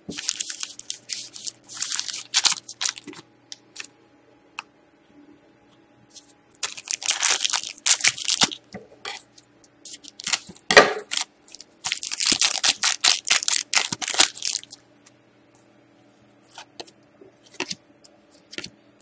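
Foil trading-card pack wrappers crinkling and rustling in several bursts as the packs are handled, with scissors cutting a pack open. There is a sharp snap about eleven seconds in.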